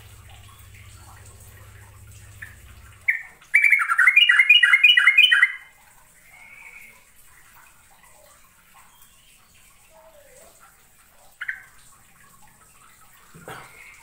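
Yellow-vented bulbul (trucukan) singing: a short note about three seconds in, then a loud run of quickly repeated bubbling notes lasting about two seconds. After it come a few faint calls and one more short note near the end.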